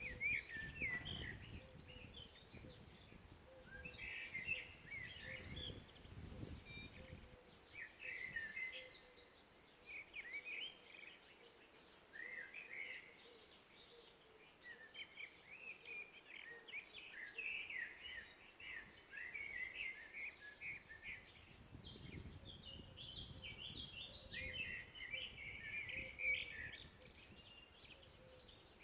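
Several woodland songbirds singing and chirping together in short, quick phrases, like a morning chorus, over a faint low rumble that swells and fades a few times.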